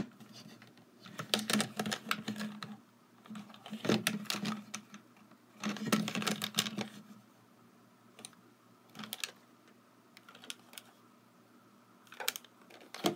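Handling noise from two small plastic portable radios, a Tecsun PL-606 and a Studebaker cassette player, turned over together in the hands: clusters of clicks, taps and rubbing as the cases knock and slide against each other, thinning to a few single clicks in the second half.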